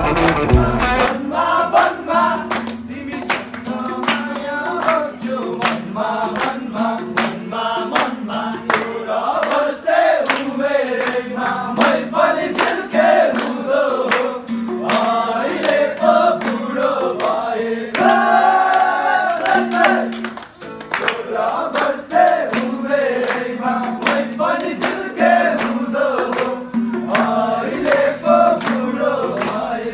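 A group of voices singing together to guitar accompaniment, over a steady run of sharp beats.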